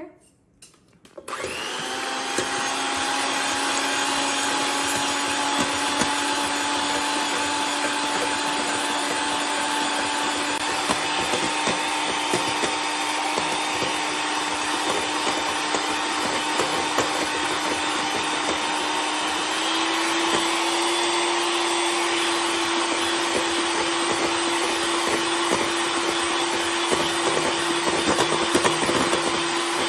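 Electric hand mixer starting about a second in and running steadily as it beats egg whites into meringue. Its whine steps up in pitch about two-thirds of the way through as the mixer goes to a higher speed.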